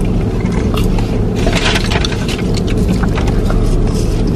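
Steady low rumble inside a car's cabin, with scattered light clicks and rustles over it, densest about a second and a half in.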